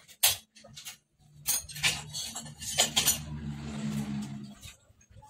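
Steel motorcycle fork tubes and tools clinking and knocking against a metal workbench as they are handled, with a few sharp clinks in the first three seconds. A low drone runs through the middle while a rag is wiped over a fork tube.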